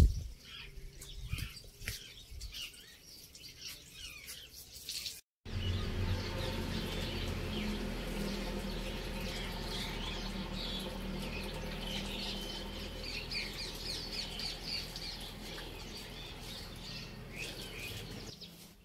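Birds chirping and calling in the surrounding trees over outdoor ambience. About five seconds in the sound cuts briefly, then a louder steady low rumble sits under a denser run of chirps.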